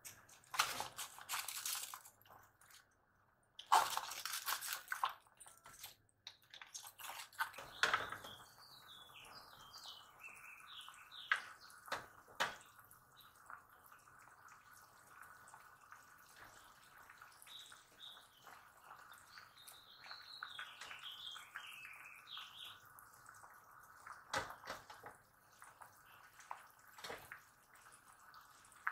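Water running from a tap in short bursts, with scattered clinks and knocks of kitchenware over a faint steady hum. Two spells of high, wavering chirps come in the middle.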